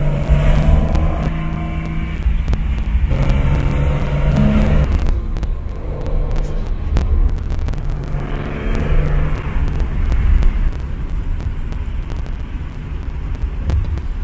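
Old car's engine running on the road, heard from inside the cabin, with a steady low road rumble. The engine note holds and then shifts pitch several times, with scattered small knocks.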